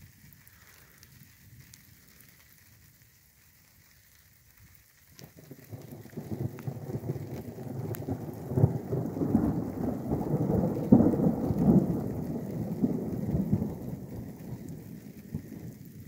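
Thunder rumbling: it starts about five seconds in, swells to its loudest past the middle and slowly fades near the end. Light rain falls throughout.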